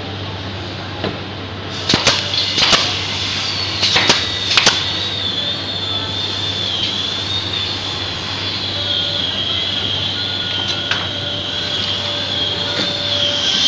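Pneumatic nail gun firing into a plywood cabinet corner: about four sharp shots in the first five seconds and one more later. Behind them runs a steady high-pitched whine and a low hum.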